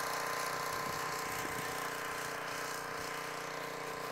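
A small engine running steadily at one even pitch, a constant hum with no change in speed.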